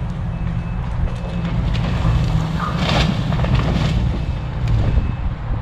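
A tree being pushed over by heavy machinery: a steady low engine rumble, with cracking and crashing of the trunk and branches about two to four seconds in.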